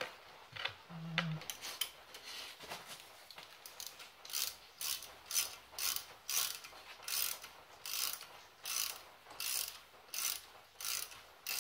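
Hand ratchet clicking in quick back-and-forth strokes, about two a second from about four seconds in, as a bolt is run in on a brake caliper; quieter and more scattered before that.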